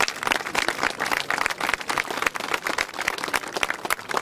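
Applause from a small crowd: many overlapping hand claps.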